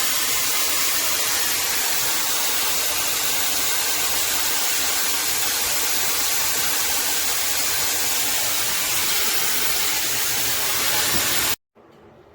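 Shark FlexStyle hair dryer blowing steadily with a loud, even rush of air; the sound cuts off abruptly near the end, leaving a faint hiss.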